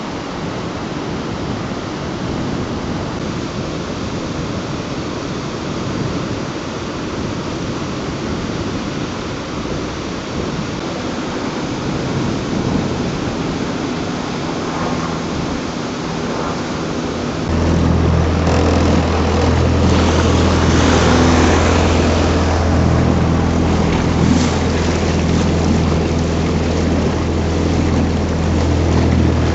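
Steady rushing noise of water and wind, then, a little over halfway through, the Norman 20 cruiser's engine comes in with a steady low hum and runs on, noticeably louder, under the rushing water.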